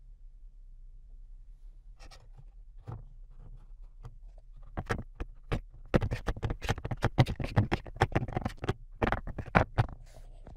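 A Ford Focus II panel air filter's frame scraping and knocking against a Skoda Fabia's plastic air-filter housing as the filter is pushed into place. There are a few faint clicks at first, then a dense run of sharp clicks and scrapes from about five seconds in, dying away just before the end.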